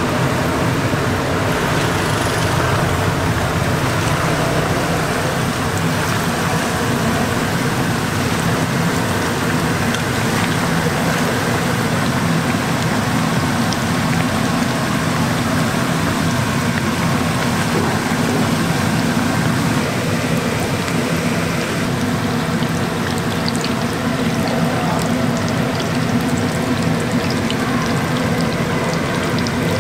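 Hot oil in a large deep fryer sizzling and bubbling steadily as a batch of breaded bread squares fries.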